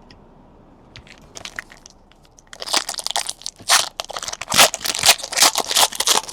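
Trading card pack wrappers being torn open and crinkled: a few light clicks, then a dense crackling from about two and a half seconds in.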